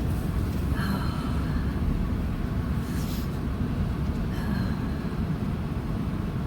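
Steady low road and engine rumble inside a moving car's cabin, with a few faint brief sounds over it.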